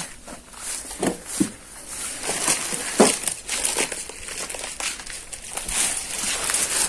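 Irregular crinkling and rustling with scattered clicks and a few louder knocks, like something being handled close to the microphone.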